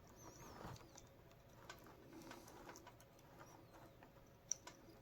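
Near silence with faint scattered taps and clicks from small wires and connectors being handled, and one sharper click about four and a half seconds in.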